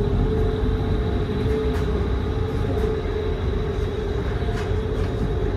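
Ferry engines running under way, a steady low drone with a steady hum, heard inside the passenger cabin.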